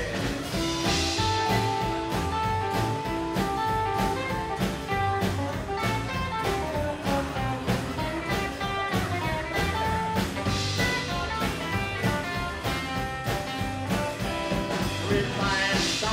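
Rockabilly band playing live without vocals: an electric guitar picks a melody line over strummed acoustic guitar, upright double bass and drums keeping a steady beat.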